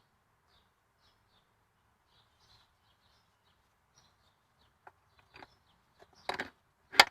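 Faint bird chirps for the first few seconds, then a handful of short sharp clicks and knocks, the loudest just before the end, from work on the strut's top bolt and mount.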